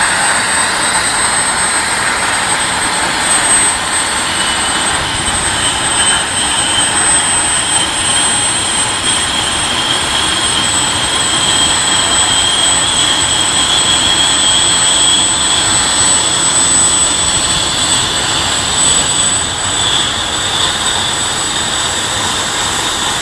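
Superconducting MRI magnet quenching: its liquid helium boiling off and venting as a loud, steady rushing hiss. A thin high whistle runs through it, and a second whistle comes in about four seconds in and rises slowly in pitch.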